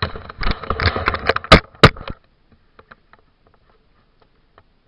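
Rustling and bumping handling noise as the carrier walks with a body-worn camera and a chainsaw, with two sharp knocks about a second and a half in. After about two seconds it drops to near quiet with a few faint ticks. The chainsaw engine is not running.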